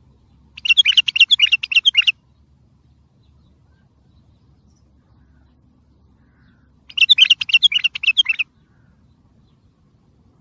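Wild bulbul singing two quick phrases of rapid, clear notes, each about a second and a half long: one near the start and one about seven seconds in.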